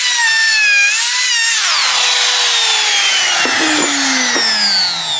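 Bosch palm router with a roundover bit, its high motor whine dipping in pitch as the bit cuts the edge of a test board. About two seconds in the router is switched off and winds down, the whine falling steadily in pitch.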